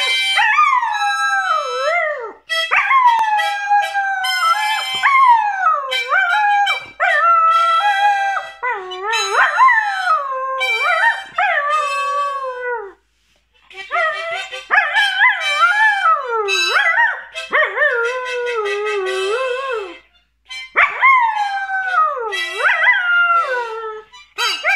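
A young Border Collie howling, 'singing' in long wavering phrases that slide up and down in pitch, with short breaks for breath about halfway through and again a few seconds later.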